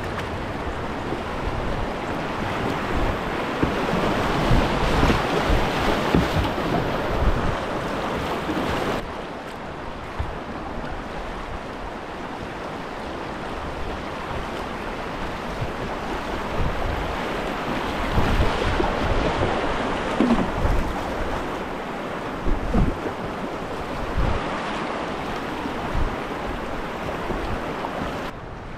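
River rapids rushing and splashing around a whitewater kayak running them, with splashes of paddle strokes. Wind buffets the microphone in low thumps.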